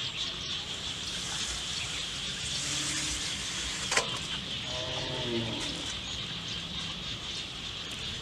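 Hands working in a shallow muddy puddle while catching fish, with one sharp clink about four seconds in as a fish is dropped into a steel bowl. A steady high-pitched drone runs underneath, and a short low call sounds about a second after the clink.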